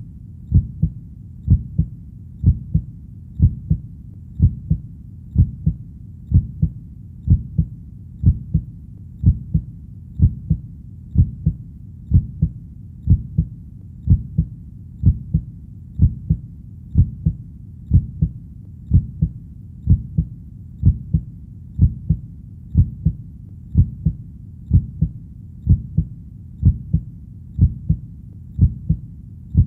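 Heartbeat beating steadily, about one beat a second, each beat a pair of low thuds (lub-dub).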